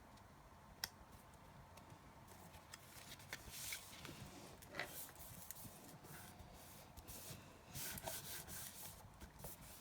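Faint rubbing and swishing of paper being handled, with a few small sharp clicks and taps.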